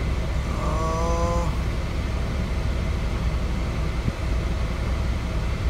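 PACCAR MX13 inline-six diesel of a 2015 Kenworth T680 idling steadily, heard from inside the cab as an even, low rumble.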